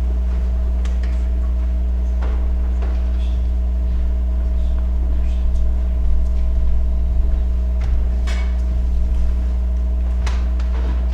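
Loud, steady electrical mains hum, with scattered light clicks and knocks of handling and movement.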